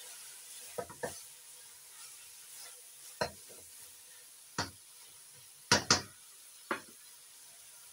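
A spatula stirring minced mutton in an aluminium pressure cooker, knocking and scraping against the pot about seven times, with a close pair of louder knocks about three quarters of the way through. A faint sizzle of the mince frying in its own released oil runs underneath.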